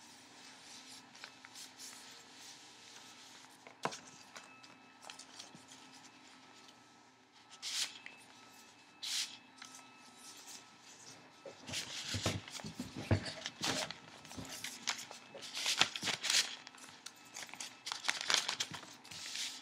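Folded paper rustling and crinkling as a modular origami ninja star is pushed and slid across a wooden tabletop, collapsing from star to ring-shaped frisbee. A few sharp rustles in the first half, then busier, denser handling from a little past halfway.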